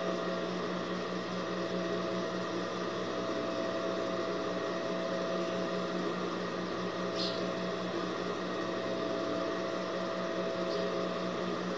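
Steady electric hum of an industrial sewing machine's motor running idle while the fabric is arranged, no stitching.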